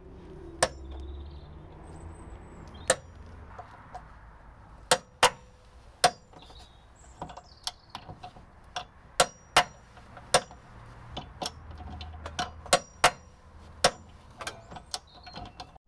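Irregular sharp metallic clicks and clinks, some ringing briefly, from a long ratchet wrench worked by foot to turn a thread chaser through rust-damaged gearbox-mount bolt threads.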